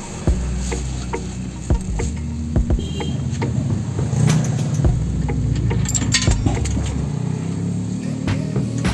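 Wrench clinking and knocking against steel as the power-steering rack and pinion's mounting bolts are fitted and tightened under the pickup, in scattered sharp clicks over a steady low hum.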